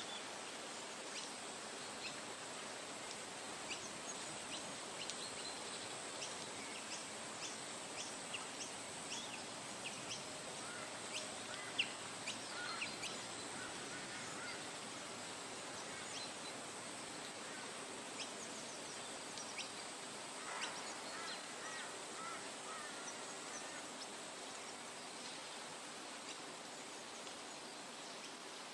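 Forest nature soundscape: a steady hiss with many short bird chirps throughout, and bursts of lower bird calls about a third of the way in and again about two-thirds through.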